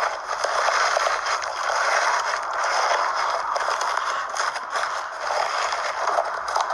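Slime being worked by hand: a steady, dense crackling full of tiny clicks and pops.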